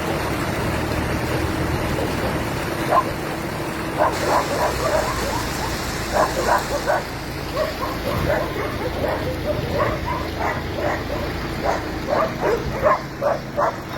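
Dog barking repeatedly in short, quick volleys, starting about three seconds in and thickening toward the end, over a steady low hum.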